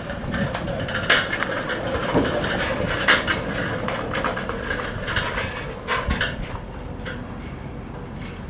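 Tembo 4x4 e-LV electric pickup driven up aluminium loading ramps into a steel shipping container: a series of clanks and knocks as the tyres load the ramps and the vehicle enters the container, over a steady noisy background.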